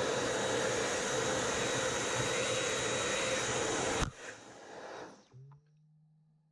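Dyson V10 cordless stick vacuum running at full power, then cutting out abruptly about four seconds in as its battery runs flat. A fainter sound and a low steady hum trail on after it stops.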